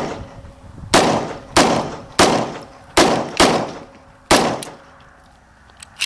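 CZ 52 pistol firing 7.62x25mm Tokarev rounds: a shot right at the start, then six more at an uneven pace over about three and a half seconds, each a sharp crack with a short echo. These are the last rounds of the magazine, which runs empty. A light click follows near the end.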